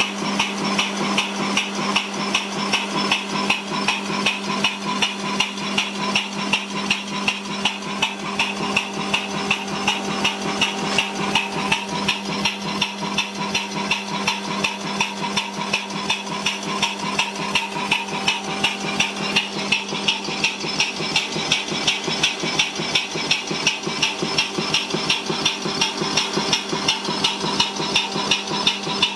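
Steam engine running on compressed air with its flywheel not yet tightened on: a steady, rapid, even beat of knocks and exhaust puffs, several to the second, over a steady hum.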